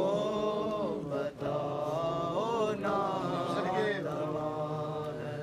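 Men's voices chanting a Shia noha (lament) unaccompanied, holding long drawn-out notes in a slow, mournful melody, with a short break for breath about a second in.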